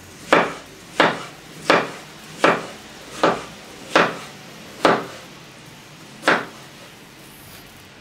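Kitchen knife chopping a peeled potato on a wooden cutting board. The blade knocks against the board eight times, a little under once a second, and the chopping stops about six seconds in.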